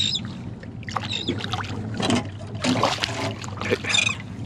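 A big hooked redfish thrashing at the surface beside the boat as it is drawn in by the leader, several irregular splashes of water.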